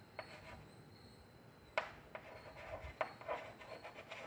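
Chalk writing on a chalkboard: faint scratching strokes with a few sharper taps, the sharpest a little under two seconds in.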